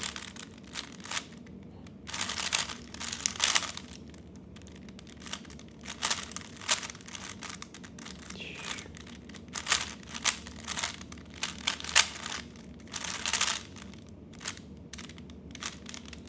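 3x3 Rubik's cube being turned fast during a speedsolve: quick runs of plastic clicking and clacking as the layers turn, broken by short pauses. These are the first-two-layers and last-layer stages of the solve.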